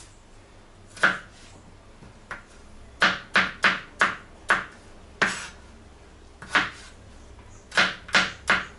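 Kitchen knife chopping potato on a plastic cutting board: about a dozen sharp knocks, coming in short runs of two to four quick strokes with pauses between.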